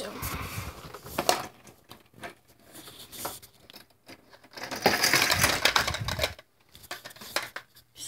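Handling noise from a phone camera being moved about close to the microphone: rubbing and scraping against clothing and skin, with scattered clicks and knocks. The scraping is loudest for about a second and a half past the middle, then stops abruptly.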